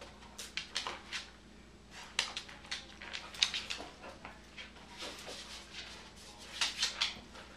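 A corgi's claws clicking and scuffling on a hardwood floor as it gets up, turns and hops about on a fleece mat, in several quick clusters of sharp taps.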